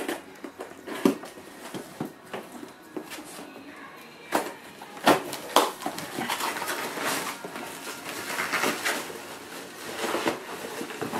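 Handling noises: a few sharp clicks and knocks, then from about six seconds in a stretch of continuous rustling, like paper or packaging being handled.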